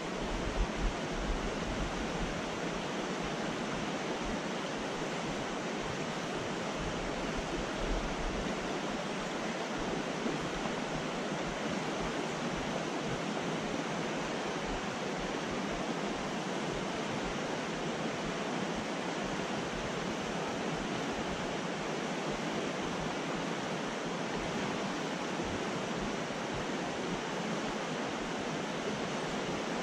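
Steady rushing of a fast, shallow mountain creek pouring over a rocky riffle.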